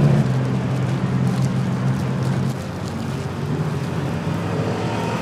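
Egg-and-cabbage omelets on a flat griddle tray, with a soft sizzle and a few faint crackles over a steady low mechanical hum.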